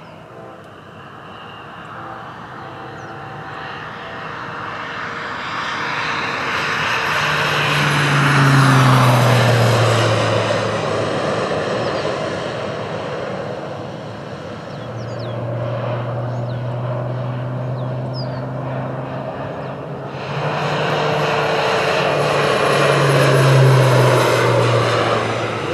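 Crop-duster airplane flying low overhead, its engine and propeller growing loud and then dropping in pitch as it passes. It does this twice, about eight seconds in and again near the end.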